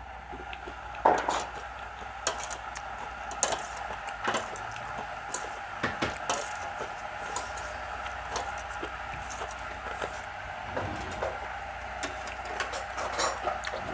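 Scattered clicks and clinks of cutlery against plates and bowls during a meal, with an occasional louder knock.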